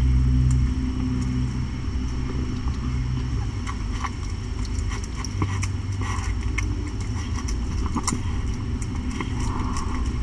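A cat eating wet food from a bowl: irregular small wet clicks and smacks of chewing, more frequent from about four seconds in, over a steady low hum.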